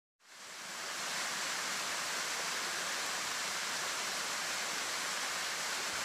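Steady rush of a waterfall pouring into a pool, fading in over the first second.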